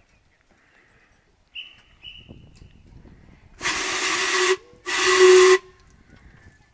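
Two short blasts from the Steam Elephant replica locomotive's steam whistle, a watery-sounding whistle that is mostly hiss with a low note under it, the second blast cut short.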